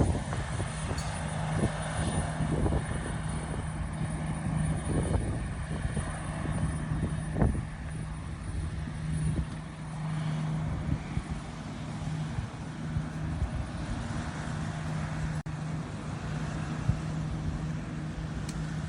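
Boat engine running at a steady pitch, a constant hum with rushing noise over it and occasional small knocks.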